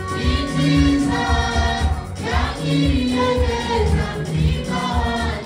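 Gospel praise and worship music: a choir singing over a steady beat.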